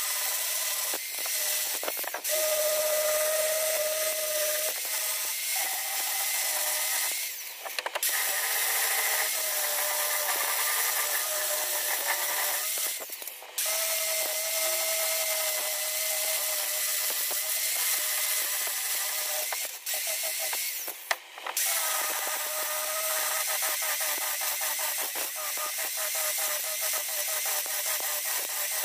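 Handheld angle grinder with a sanding pad running against the wooden face of a cricket bat, sanding it back: a steady high whine over a scraping hiss. The sound drops out briefly three times, about 7 s, 13 s and 21 s in.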